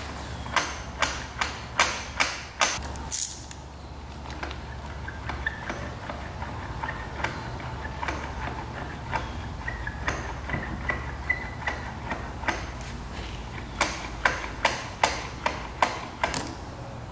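Brake being pumped over and over to bleed the hydraulic brake of a 1996 Yamaha YZ125, giving sharp clicks about two or three a second in two runs. The bleed is getting nowhere, which the owner puts down to rusty caliper seals leaking.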